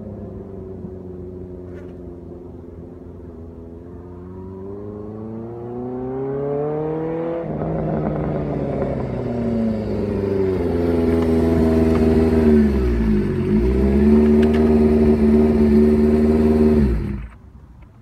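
Honda CB550's air-cooled inline-four through a Moto GP Werks exhaust, ridden up through the gears. The engine note climbs, drops at a gear change about seven seconds in, and grows louder as the bike comes closer. Near the end the pitch dips and picks up again, holds steady, then the engine cuts off suddenly.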